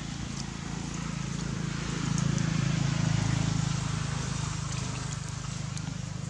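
Steady low motor hum that swells about two seconds in and eases off again, over a background hiss.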